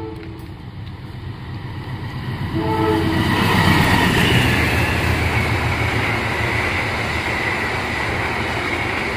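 The end of a train horn blast at the start and a second short horn blast about three seconds in. Then a passenger train passes close by, with a loud, steady rush of wheels on rails.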